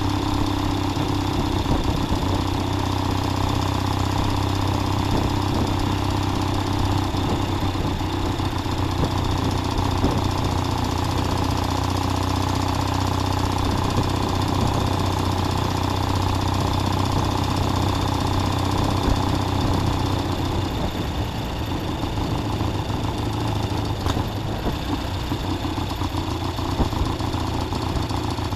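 1969 Triumph T120 Bonneville's 650 cc parallel-twin engine running under way at a steady cruise. Its note fades a little about two-thirds of the way in.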